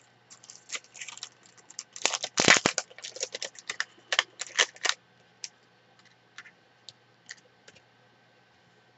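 Plastic die packet crinkling and clicking as small metal cutting dies are slid back into it, densest about two to three seconds in, then a few scattered clicks.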